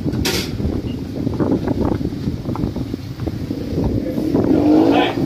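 City street traffic: a car driving past close by, with wind rumbling on the microphone. There is a short sharp knock just after the start.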